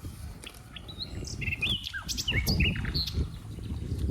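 Small birds chirping, a scatter of short, quick rising and falling chirps, over a low background rumble.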